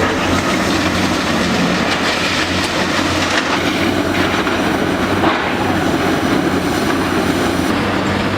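Long-front demolition excavator working: a steady diesel engine hum under a continuous dense rattle and crunch of machinery and breaking material.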